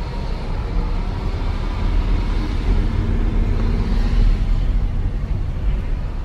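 Road noise heard inside a moving car: a steady low rumble of tyres and engine with a hiss over it.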